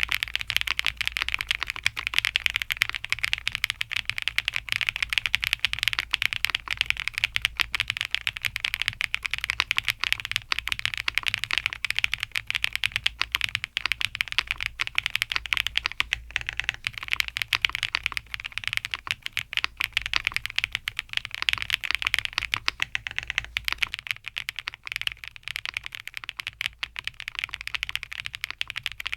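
Typing on a KBDFans Athena 1800 full-size custom mechanical keyboard: a fast, continuous stream of keystrokes and key clacks.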